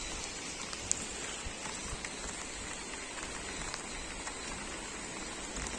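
Steady, even rushing of water, with a few faint ticks.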